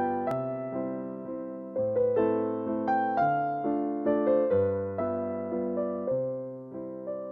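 Background piano music: gentle notes and chords struck one after another and left to fade.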